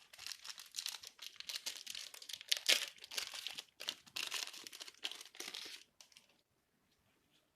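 Plastic wrapping crinkling as it is handled and pulled open around a deck of game cards: a dense crackle that stops about six seconds in.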